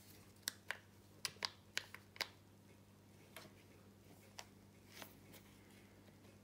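Sharp little plastic clicks and taps from the opened housing and brake mechanism of a Flexi retractable dog leash being worked by hand: about six in the first two and a half seconds, then a few fainter ones. The brake catch does not engage while the housing's top half, which gives it its counter-bearing, is off.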